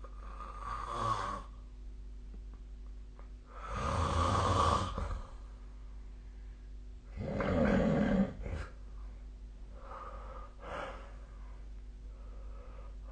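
A sleeping person snoring: three loud snores about three and a half seconds apart, each lasting a second or more, the middle one the loudest. Softer, shorter breaths follow near the end.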